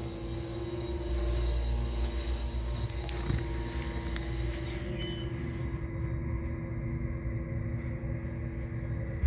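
Elevator machine-room equipment running: a steady low rumble with a constant electrical hum, with a faint click about three seconds in and a clunk at the very end.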